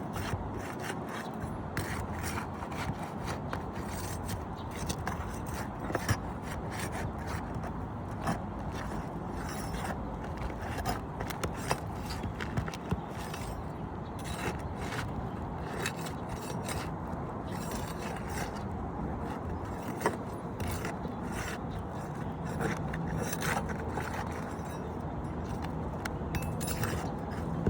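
Irregular scraping and rubbing of hand work, with many scattered clicks and knocks.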